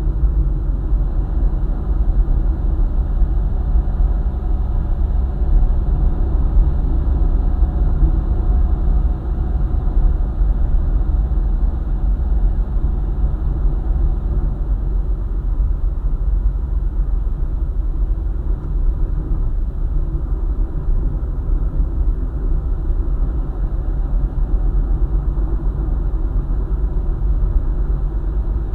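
Steady low rumble of a vehicle driving along a highway: engine and tyre noise with no breaks. A faint steady hum sits under it and fades out about halfway through.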